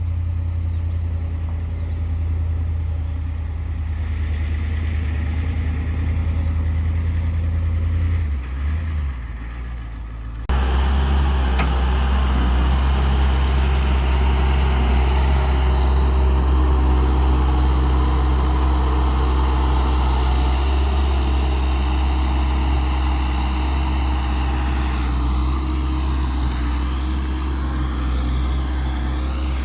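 A heavy vehicle engine running steadily with a deep low hum. About ten seconds in it changes abruptly to a louder, fuller engine sound that holds steady.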